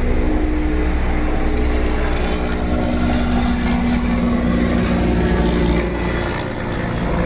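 Motorcycle engine running steadily close by, a loud even drone with a low rumble that eases off slightly near the end.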